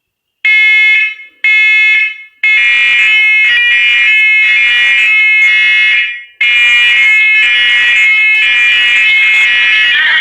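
First Alert wirelessly interconnected smoke and carbon monoxide alarms sounding their high-pitched test alarm. Two single beeps, then from about two and a half seconds in several alarms beep at once, out of step, in a nearly continuous loud overlapping beeping: one test button has set off all the interconnected units.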